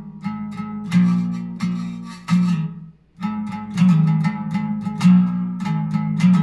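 A homemade stringed instrument built from a grill scraper, plucked through a small guitar amplifier: a quick run of picked notes that breaks off briefly about three seconds in, then starts again.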